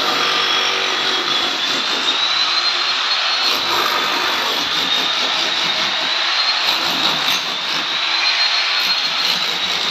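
A machine running steadily: a high whine that drifts slowly up and down in pitch over a constant rushing noise.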